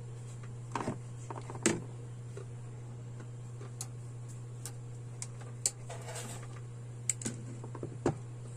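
Pliers and insulated electrical wire being handled: scattered sharp clicks and light rustles as wires are worked and spliced at a plastic electrical box, over a steady low hum.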